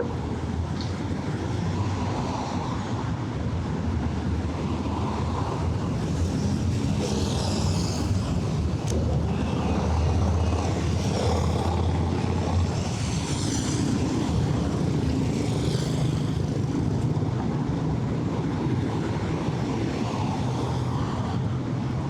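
City street traffic: a steady low rumble of passing vehicles, a little louder around the middle.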